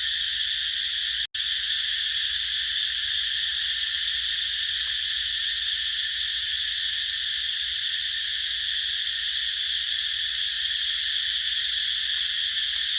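Cicada chorus: a steady, dense, high-pitched buzz that holds throughout, cutting out for an instant about a second in.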